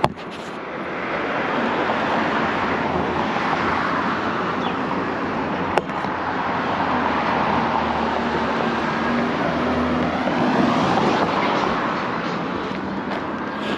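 A vehicle passing by, its rumbling noise building over several seconds, peaking about ten seconds in and fading near the end, with a couple of sharp clicks along the way.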